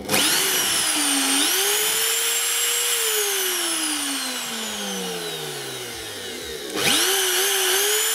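Fiolent MF4-1100E 1100 W plunge router's motor, running free with no cut, started with a sudden whine that climbs to full speed within about a second. It is switched off about three seconds in and winds down with a falling whine, then is started again near the end and whines back up to speed.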